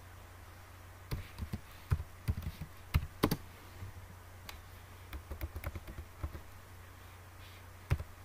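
Computer keyboard being typed on: irregular key clicks, a few at a time with short pauses, over a low steady hum.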